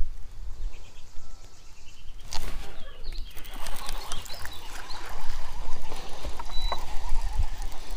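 Wind buffeting the microphone: an uneven low rumble throughout. From about two seconds in there are scattered clicks and a few faint short chirps.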